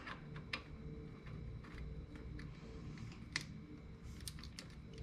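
Light, irregular metal clicks and taps of small parts being handled and seated on a 125cc ATV engine's clutch assembly. A faint, steady hum runs underneath.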